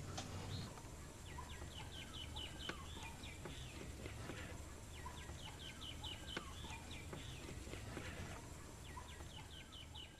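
Faint bird calls: a quick series of about eight short, high chirps, repeated three times at intervals of roughly four seconds, over a low steady hum.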